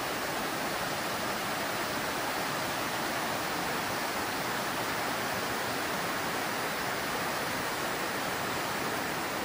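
A rocky river rushing over stones: a steady, even sound of running water that does not change.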